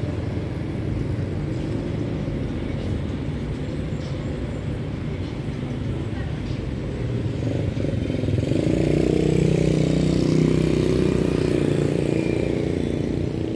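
Street traffic: motorcycles and a minibus going by with a steady low rumble. A louder vehicle engine passes close from about eight seconds in, for a few seconds.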